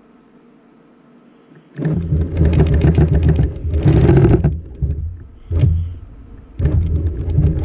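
Longarm quilting machine stitching: a low motor hum with rapid needle clicks that starts about two seconds in, stops and restarts a few times in short runs.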